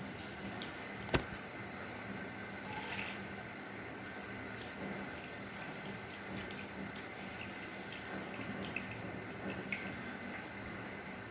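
Eating sounds of rice and bhorta being mixed and eaten by hand, with scattered small wet clicks and one sharp click about a second in, over a steady low hum.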